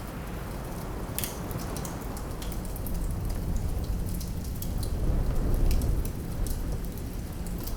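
Fireplace fire crackling with scattered sharp pops over a steady low rumble of wind, which swells in a gust about five seconds in.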